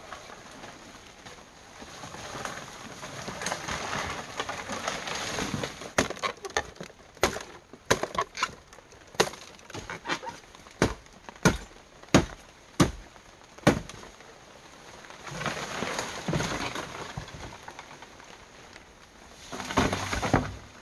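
Leaves and brush rustling as someone pushes through dense forest undergrowth, then about a dozen sharp machete chops, one or two a second, then more rustling of brush.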